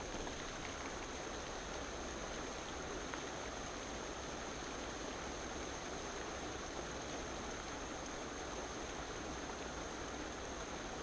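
Steady, even outdoor hiss with no distinct events, with a thin, steady high-pitched tone running over it.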